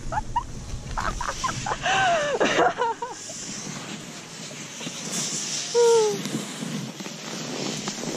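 Breathless laughter in short bursts, with a short high falling squeal about six seconds in, over the scrape and swish of skis and boots in deep snow.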